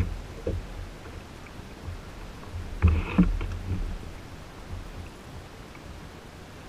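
Kayak on calm water: a low rumble with a few sharp knocks, the loudest two about three seconds in, then a quieter, even hiss.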